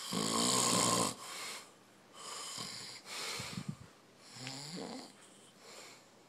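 A man snoring in deep sleep. A loud, pitched snore opens, then a string of shorter, rasping snoring breaths in and out, about one a second.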